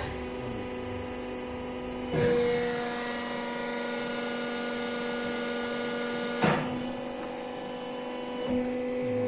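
Hydraulic power unit of a Durma HAP 2580 80-tonne CNC press brake running with a steady hum. About two seconds in the hum gets louder and fuller as the ram starts its stroke down towards the sheet. One sharp clack comes about six and a half seconds in.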